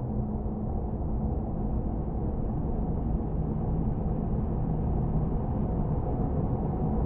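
Low, steady rumbling drone of a haunted-house horror ambience, with no distinct knocks or voices.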